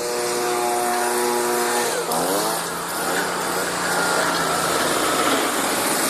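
Stump grinder engine running at a steady pitch. About two seconds in, the pitch drops sharply and climbs back as the cutting wheel takes load, then the engine labours on with a rougher, wavering sound over grinding noise.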